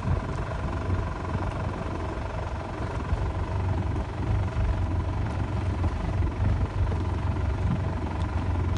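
A small boat's engine running steadily with an even, low drone.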